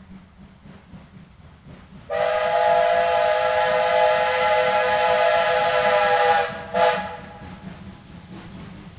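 Steam locomotive whistle blown in one long chord-like blast of about four seconds, then a short second toot, as the double-headed steam train pulls away. The locomotives' low rumble runs under it.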